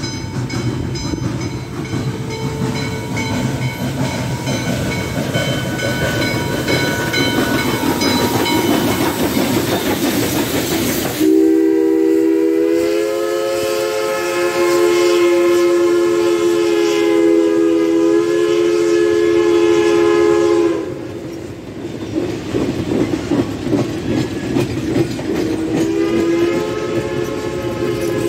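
WMSR 1309, a 2-6-6-2 Mallet steam locomotive, passing with its train: heavy rumbling of the engine and rolling coaches, with a bell ringing. About eleven seconds in comes a long blast of nearly ten seconds from its PRR three-chime steam whistle, and a second blast starts near the end, over the clickety-clack of the passing coaches.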